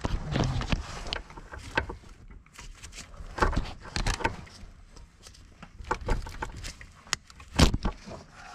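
A 14-pin wiring-harness connector being worked loose by hand: irregular plastic clicks and knocks, with the corrugated wiring loom rattling and rustling between them. Two sharper knocks stand out, one about 3.5 s in and the loudest about 7.5 s in.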